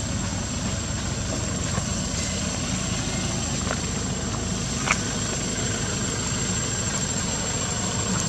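Steady low rumble with a hiss over it, and a few faint clicks around the middle.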